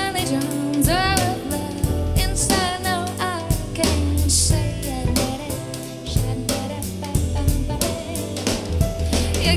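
Soul jazz song with a sung vocal melody over bass and drum kit, played back through in-ear monitors for a sound comparison.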